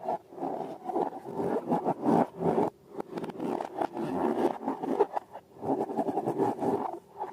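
Slime being worked: a quick run of sticky scraping and squelching strokes, with brief pauses about three seconds in and near the end.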